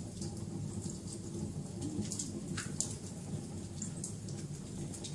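Wood fire crackling: scattered sharp pops and ticks over a low steady rumble, with one louder pop a little past halfway.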